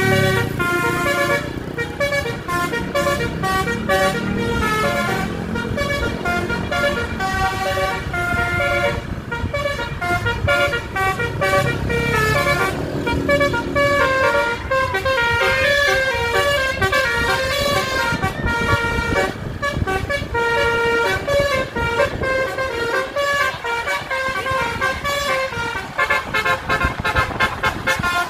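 Bus basuri horn, a multi-tone electric horn, playing a tune in stepping notes over the sound of road traffic, ending in a quick run of short blasts near the end.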